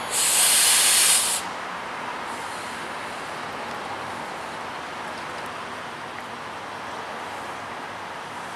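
A locomotive gives a loud burst of pressure hiss for about a second and a half, cutting off abruptly, over a steady low background of railroad noise.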